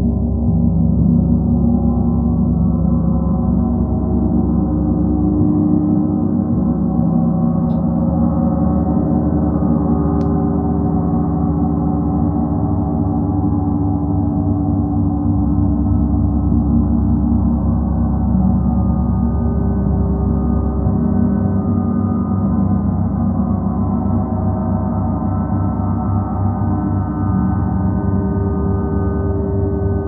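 Gongs ringing in a steady, dense wash of many overlapping sustained tones, with no separate strikes heard.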